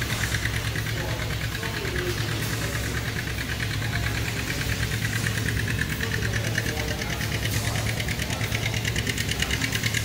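Frick horizontal stationary steam engine and its belt-driven machinery running steadily: an even mechanical clatter with a fast, regular ticking over a constant low hum.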